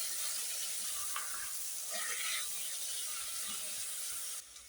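Chopped tomatoes, chillies and onions sizzling in hot oil in a cooking pot, with a couple of stirring strokes about one and two seconds in. The sizzle cuts off suddenly near the end.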